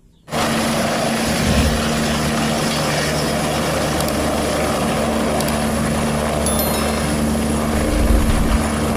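A helicopter's rotor and turbine engine running close by: a steady, loud noise with a low hum under it, starting suddenly just after the start.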